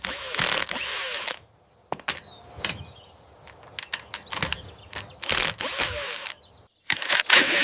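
Repair sound effects: bursts of tool noise about a second long and ratchet-like clicking as something is fixed.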